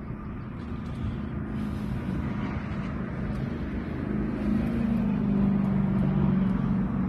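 A boat motor running with a steady low hum that grows louder about four and a half seconds in.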